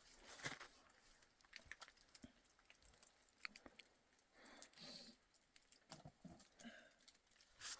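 Near silence with faint, irregular small clicks and soft crunches.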